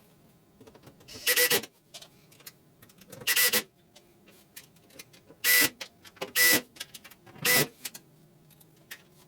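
Small electric motor, most likely a cordless screwdriver, running in five short bursts of about half a second each, roughly one to two seconds apart, as screws are driven and tightened on a dishwasher's front panel.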